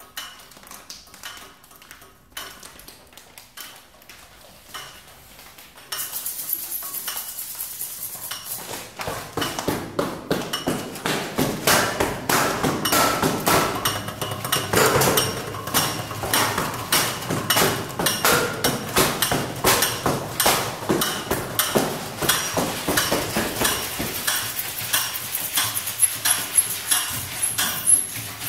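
Improvised percussion on a concrete balustrade: hands tapping and slapping the stone in a dense, fast, irregular run of knocks, some with short ringing pings. It starts sparse and quiet and jumps louder about six seconds in.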